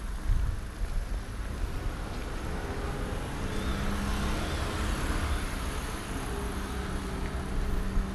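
A motor vehicle passes, its engine tone and road noise swelling to a peak about halfway through and then easing off, over a low rumble.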